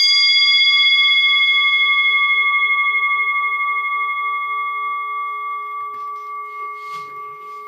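The hour bell of a 1730 clock, cast in airain (bell metal), ringing out after a single strike: a clear tone with several overtones that fades slowly, the highest overtones dying away first, with a gentle pulsing wobble.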